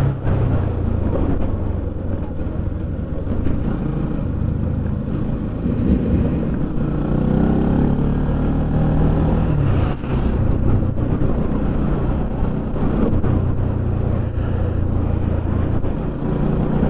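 Bajaj Pulsar NS200's single-cylinder engine running under way, its note rising and falling with the throttle, with a brief dip about ten seconds in, over wind noise on the helmet camera's microphone.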